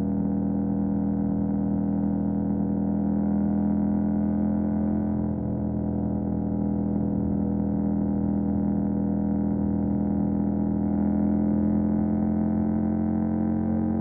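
2018 KTM 790 Duke's 799 cc parallel-twin engine through an Austin Racing RS22 exhaust, running steadily at constant revs with an even, unchanging pitch.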